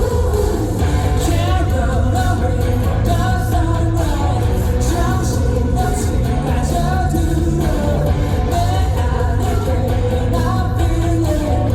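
Live pop-rock song performed on stage: a male lead vocal singing over a band track with heavy, steady bass.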